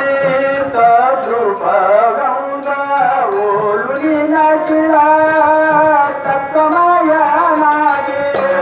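A man's voice singing a devotional bhajan over sustained harmonium notes, with light high metallic clinks keeping time.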